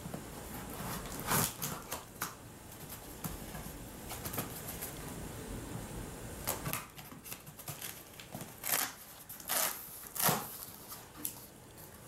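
Scissors cutting the packing tape along the seam of a cardboard box: a scatter of short snips, scrapes and cardboard rustles, with several sharper clicks in the second half as the box is worked open.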